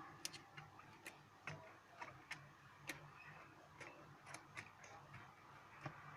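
Small sharp clicks and snaps at an irregular pace, about two or three a second, as a Samsung Galaxy Tab Pro's back cover is pried open and its plastic clips let go.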